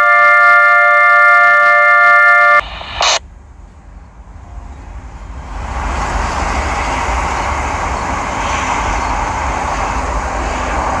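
Federal Signal SD-10 siren sounding a steady chord of several tones that cuts off abruptly about two and a half seconds in. A short burst of noise follows, then a steady rushing noise with a low rumble builds up and holds.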